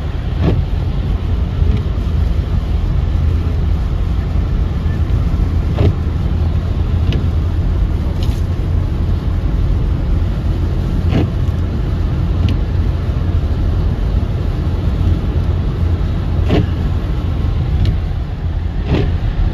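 Steady low road and tyre noise heard from inside a car driving on a wet, slushy freeway, with a sharp tick every few seconds.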